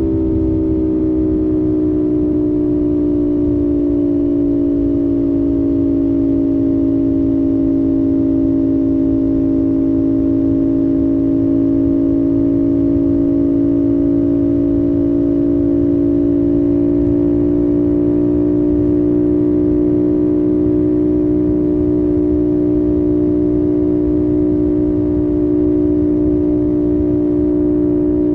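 2025 CFMOTO 450SS parallel-twin engine running at a steady expressway cruise, a constant drone whose pitch eases down slightly early on and then holds steady.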